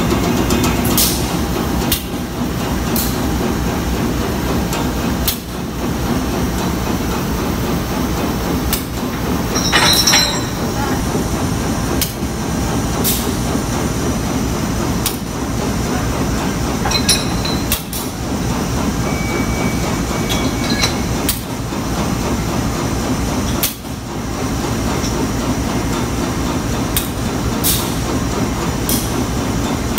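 Diesel-hauled passenger train moving slowly at a station platform: a steady low rumble with scattered metallic clanks and a few brief high squeals.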